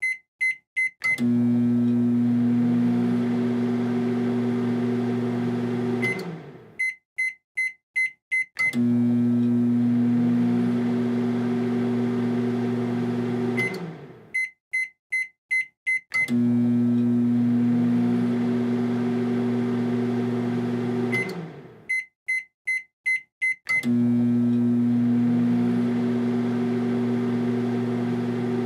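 Microwave oven running with a steady electrical hum that winds down after about five seconds. A string of short, high beeps follows, then the oven starts up again. The cycle repeats about every seven seconds.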